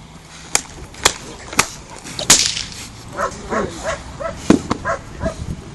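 Four sharp cracks about half a second apart, then a dog's short, high whines, about four a second, while it grips and tugs a bite sleeve in protection work.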